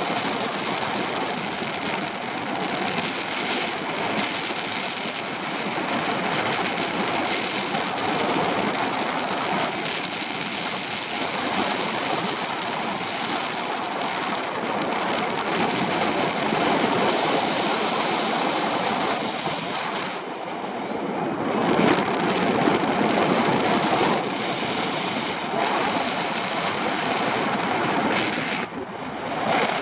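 Wind rushing over the microphone from the airflow of paraglider flight, a steady buffeting that swells for a few seconds about two-thirds of the way through.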